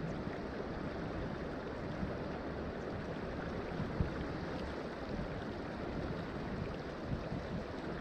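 Fast-flowing creek water rushing past close to the surface: a steady, even rush with a few brief low bumps, the strongest about halfway through.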